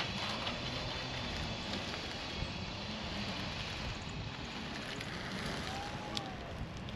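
Steady outdoor background noise with wind on the microphone, and one short click about six seconds in.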